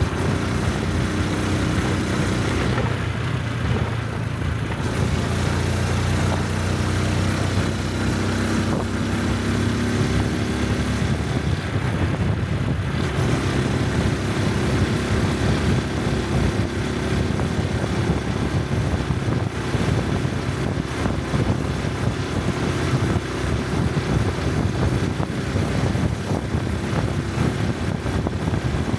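Honda 125 cc Cub motorcycle's single-cylinder four-stroke engine and exhaust running on the move, the engine note shifting in pitch a few times as the throttle and gears change, with a rushing noise behind it.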